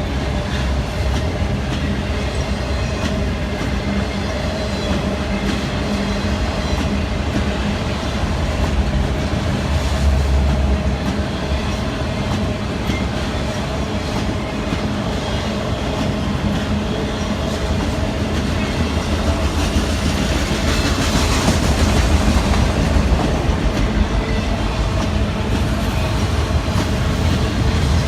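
CSX autorack freight train rolling past slowly: a steady rumble with the wheels clicking over rail joints. It gets a little louder and brighter about twenty seconds in.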